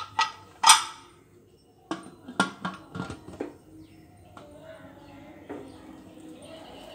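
A dog barks twice, loudly, near the start. Then comes a quick run of metal clinks and knocks as the lid of a pressure cooker is fitted and closed over the pot.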